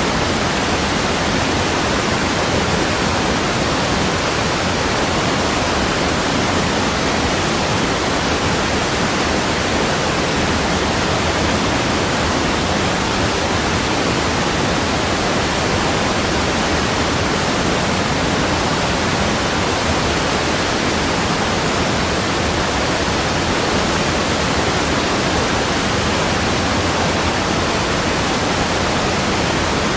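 Steady rushing water, an even hiss with no surges or breaks.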